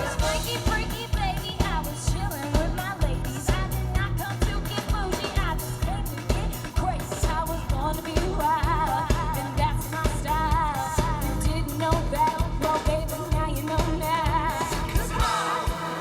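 A band playing pop music with singing over a steady drum beat and bass.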